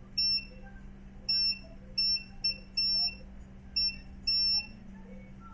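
Multimeter continuity beeper sounding in seven short, uneven beeps as the probes touch the circuit, a steady high tone each time. The beep signals continuity: the PS5 line being probed is shorted.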